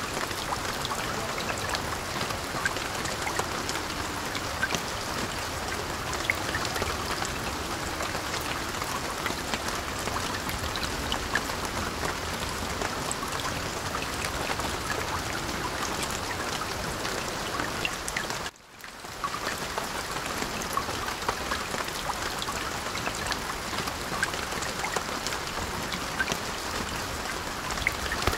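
Steady rain pattering, with many small drop ticks through an even hiss; it breaks off for a moment about two-thirds of the way through.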